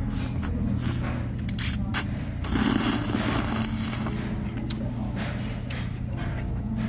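A person slurping thin janchi guksu noodles, with a longer noisy slurp about two and a half seconds in and a few short clicks just before it. A steady low hum runs underneath.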